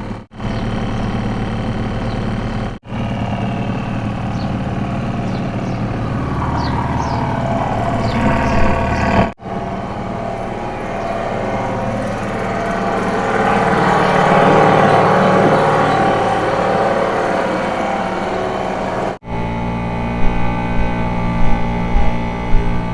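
Two-stroke Seagull outboard motor running steadily, pushing a small boat along. It is broken by a few abrupt short gaps, and there are some sharp knocks near the end.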